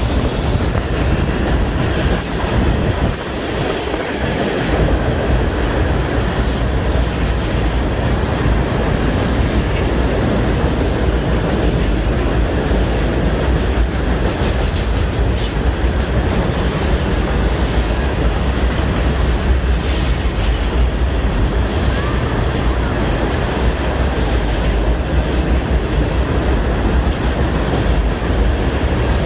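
Florida East Coast Railway freight train's cars rolling past close by: a steady, loud rumble of steel wheels on rail with sharp clicks scattered through it.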